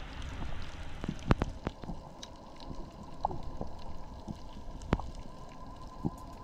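Underwater sound picked up by a diving camera: a steady, muffled low rush of water with scattered sharp clicks and crackles, two of them louder, about a second in and near five seconds. A faint steady whine joins about two seconds in.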